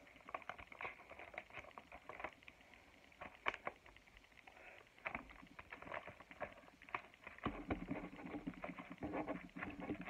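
Layered cardboard and red paper rustling and crackling as they are handled and worked at, with many small scattered clicks and one sharper crack about three and a half seconds in.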